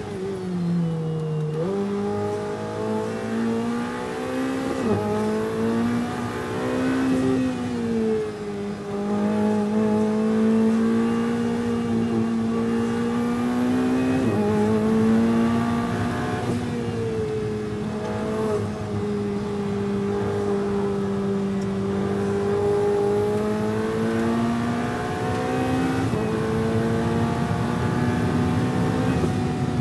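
A Ferrari 488 Challenge Evo's twin-turbo V8 at race pace, heard from inside the cockpit. It pulls hard through the gears, the pitch climbing and then dropping sharply at each upshift, about halfway through and again near the end, with a dip under braking before that.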